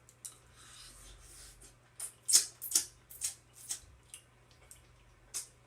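Close-up eating and seafood-handling noises: a run of short, sharp clicks and crackles, about three a second at their busiest, from about two seconds in.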